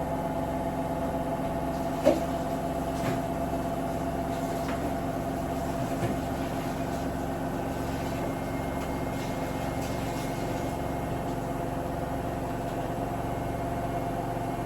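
Steady mechanical hum with a regularly pulsing low throb, like a running household appliance, with a sharp knock about two seconds in and a few lighter knocks later.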